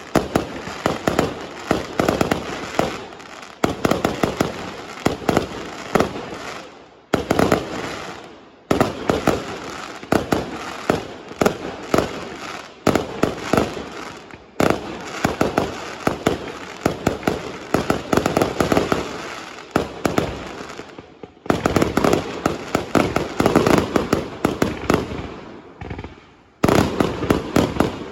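Fireworks going off in a dense, rapid barrage of bangs and crackles. The barrage breaks off abruptly and resumes several times.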